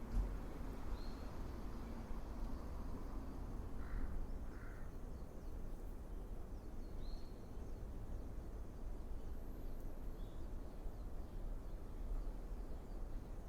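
Outdoor ambience with a steady low rumble and a few brief, faint bird chirps: a few high single notes scattered through, and two short lower notes in quick succession about four seconds in.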